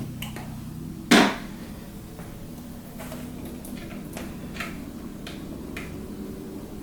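Computer parts being handled while fitting a graphics card into a PC case: one sharp knock about a second in, then several light clicks and taps, over a steady low hum.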